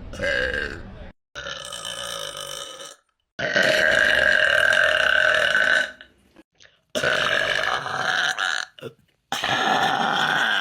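A person burping on purpose: five long, drawn-out burps one after another, with short silent breaks between them. The third, about a third of the way in, is the loudest and longest, at about two and a half seconds.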